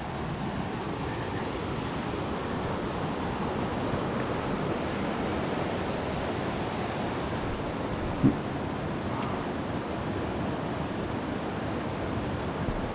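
Steady rush of Vallecito Creek, a mountain creek running fast over rocks, with a single dull knock about eight seconds in.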